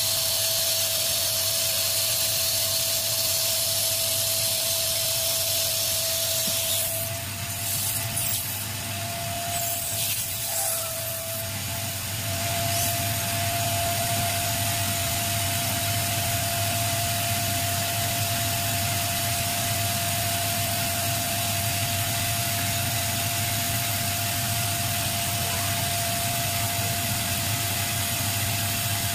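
Nissan Serena C24 engine idling steadily, heard as a low hum under a constant high whine and a broad hiss.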